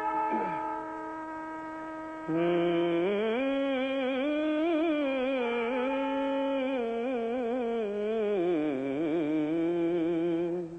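A man singing a wordless Carnatic-style melodic phrase, like a raga alapana. A held note gives way about two seconds in to a louder line that rises and falls with quick wavering ornaments.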